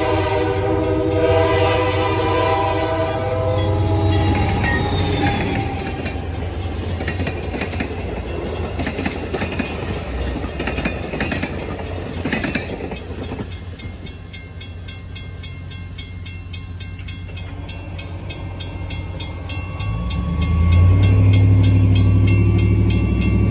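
Diesel locomotive horn sounding its chord as the train reaches the crossing, stopping about three seconds in, then the train rolling past with wheels clicking over the crossing. As the train clears, the crossing signal bell rings on with fast, even strokes, and near the end a pickup truck's engine revs up as it pulls away across the tracks.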